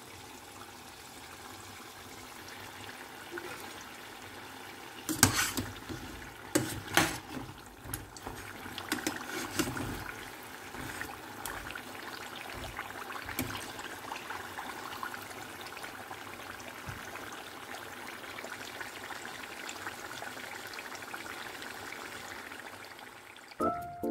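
Spring rolls deep-frying in a pot of hot oil, the oil sizzling steadily. A few sharp clatters come about five to seven seconds in, as a metal skimmer works the rolls against the pot.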